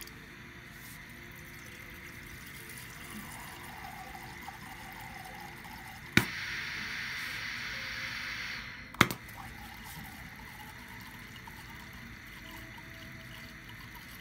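Hibar piston filling machine clicks about six seconds in, and liquid streams from its nozzle into a glass beaker with a steady hiss for about three seconds until a second click ends the dose.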